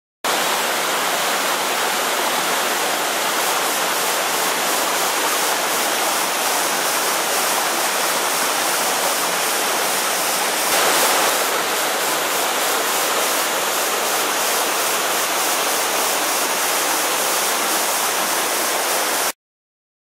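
Small waterfall pouring down a narrow rocky gully into a shallow stony pool: a steady rush of falling and splashing water, briefly a little louder about halfway through.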